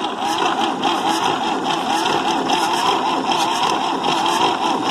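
Electric starter cranking the MWM diesel engine of a Massey Ferguson 85 tractor, laid up for five years, over without it firing, with injector lines cracked open to bleed air from the fuel system. The starter's whine wavers in a quick regular rhythm.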